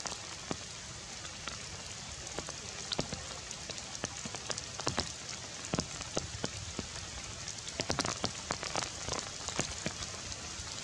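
Steady rain falling through tree foliage: an even hiss with frequent sharp drop hits close by, coming a little thicker near the end.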